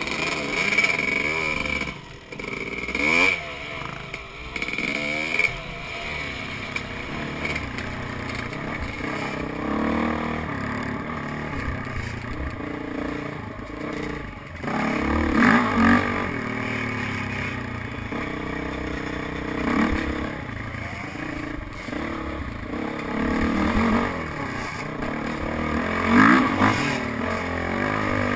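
Dirt bike engines revving up and down with repeated throttle bursts, the loudest about fifteen and twenty-six seconds in.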